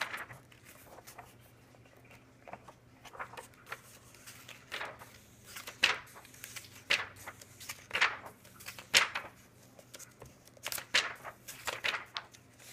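Thick glossy pages of an oversized hardcover comic book being turned one after another, a short papery swish with each turn, about one a second.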